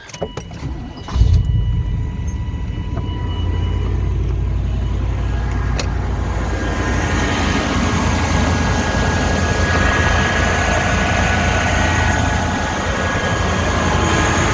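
Chevy 350 TBI small-block V8 with shorty headers, cranked and catching about a second in, then running at a steady idle. A thin steady tone sounds over the first few seconds.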